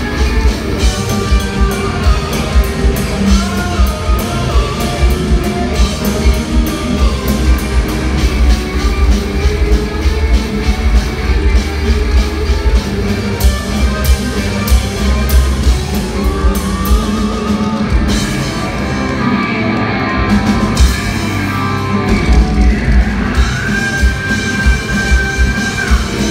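Progressive metal band playing live in a hall: double-neck electric guitar and double-neck bass over a pounding drum kit, with a long held high note near the end.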